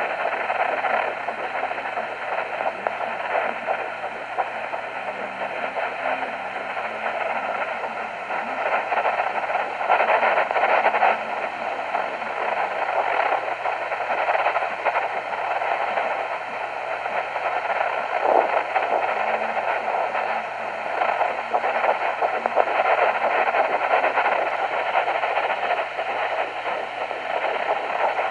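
Home fetal doppler's speaker giving a steady hiss of static that swells and fades as the probe is moved over the belly, searching for the heartbeat of a 10-week fetus.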